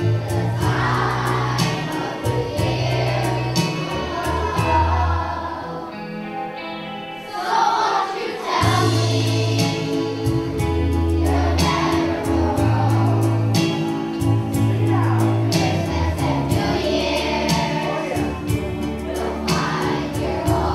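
Children's choir singing a song to instrumental accompaniment with a strong bass line and a steady beat. The bass drops out for a couple of seconds partway through, then comes back in.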